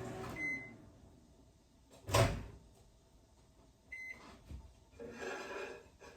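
Microwave oven hum cutting off just after the start, followed by a short high beep. A loud clunk about two seconds in, as of its door opening, then another short beep near four seconds and some clattering handling near the end.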